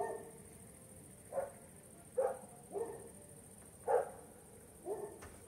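Domestic cat giving a series of short meows, about six, roughly one a second.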